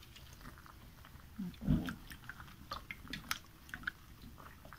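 A whole catfish being scrubbed with a wet sponge and fingers in a baking dish: irregular wet squelching and small clicks, with one soft thump just under two seconds in.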